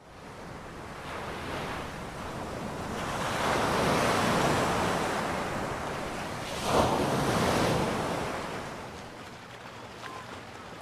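Sea waves washing onto a beach: the surf swells a few seconds in, a wave breaks sharply near seven seconds, then the wash fades away.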